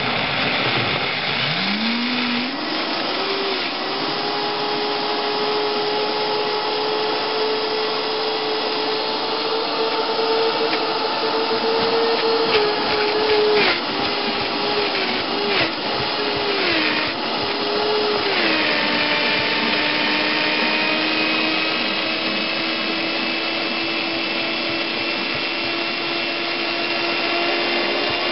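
Vitamix high-speed blender motor spinning up about a second in, then running hard as it grinds soaked pecans and pumpkin and sunflower seeds into a thick pate. Midway the pitch wobbles and dips several times, with a few sharp knocks, as the thick mix loads the motor under the tamper; then it settles slightly lower and runs steadily.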